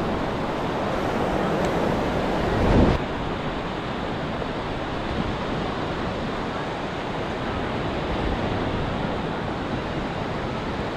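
Ocean surf washing on the beach with wind on the microphone, a steady rush of noise. It swells to a louder rush about three seconds in, then settles a little quieter.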